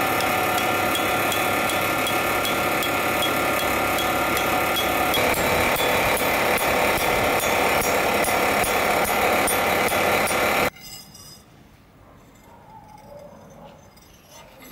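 A steady mechanical running noise with several held tones and a fine rapid ticking. It cuts off suddenly about eleven seconds in, leaving only faint background sound.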